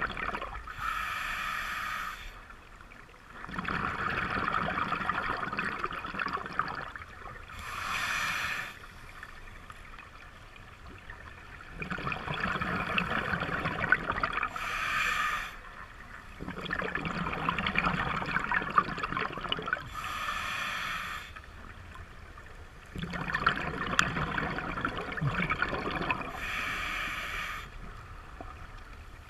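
Scuba diver breathing through a regulator underwater: a short hissing inhale followed by a longer rush of exhaled bubbles, about five breaths, one every six seconds or so.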